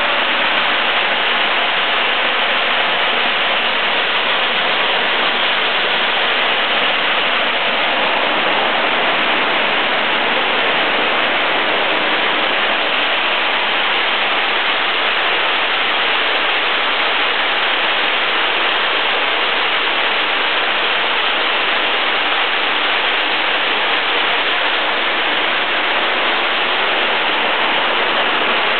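Steady, loud machinery din of a plastic bottle cap-and-label removing machine and its feed conveyor running, an even rushing noise that never lets up.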